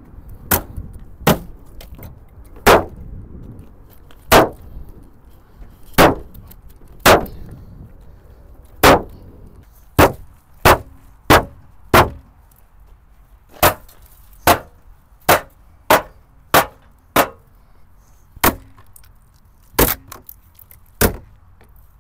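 Hammer blows on the body of a Ford Focus, about twenty sharp, separate strikes. They come at an irregular pace and fall closer together from about ten seconds in.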